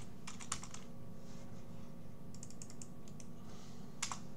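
Keystrokes on a computer keyboard: a quick run of taps about half a second in, another flurry a little past two seconds, and one sharper click near the end, over a faint steady hum.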